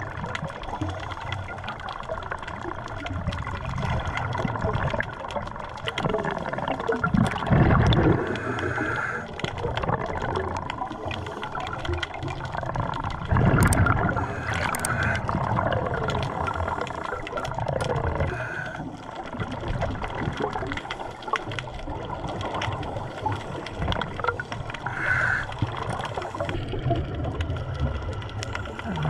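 Underwater sound of a scuba diver breathing through a regulator, with exhaled bubbles gurgling every few seconds over a steady underwater hiss.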